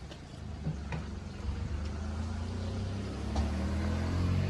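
Car engine pulling away. Its low hum gets louder from about a second and a half in, and its pitch creeps up as it gathers speed.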